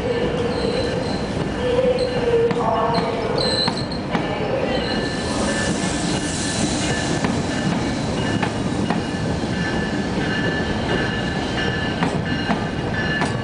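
UTDC bi-level passenger coaches rolling past at low speed. Wheels run on the rails with a steady rumble, thin high-pitched wheel squeal and scattered clicks over the rail joints.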